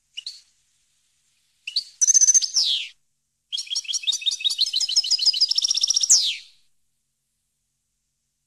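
European goldfinch singing: a short call, then a brief twittering phrase, then a longer phrase of rapid repeated high notes ending in a downward slur.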